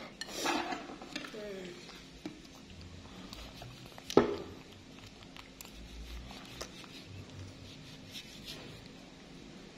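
A short soft voice near the start, then a single sharp knock about four seconds in, over low room noise with a few faint ticks of handling.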